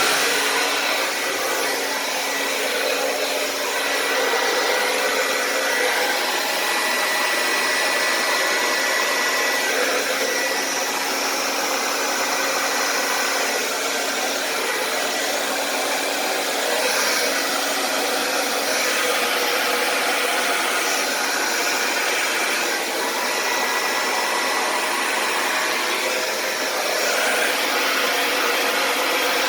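Handheld blow dryer running steadily, blowing wet acrylic paint across a canvas.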